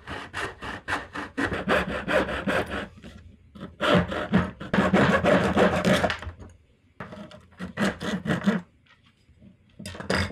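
Hand saw cutting a 3D-printed PLA plastic part in quick back-and-forth strokes, about four or five a second, in several bouts with short pauses between them; the part is being trimmed for clearance.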